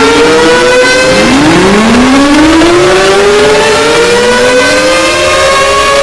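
Several sirens winding up one after another, their slowly rising wails overlapping and levelling off over a loud hiss.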